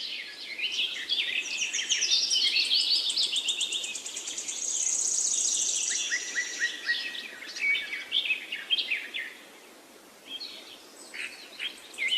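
Several small birds chirping and twittering in quick, high notes, with a steady high buzzing trill from about four and a half to seven seconds in. The chirping thins out around ten seconds, then picks up again near the end.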